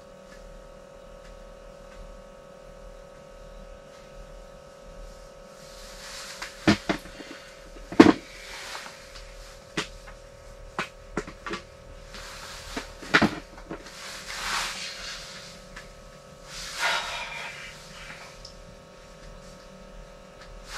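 Steady low hum, with scattered sharp clicks and knocks and several short bursts of rustling starting about six seconds in, as fishing gear is handled and a hand reaches into a bucket.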